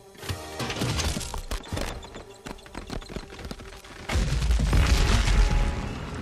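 Cartoon sound effects of a small twig-and-leaf harvesting contraption crashing into a stack of stones, with a run of rattling knocks and clatters. About four seconds in, a loud low rumble sets in as the stone pile holding up the heap of food starts to give way.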